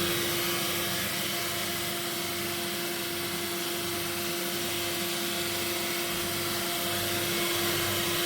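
Powermatic PM2244 drum sander running steadily: a constant hum over an even rushing noise.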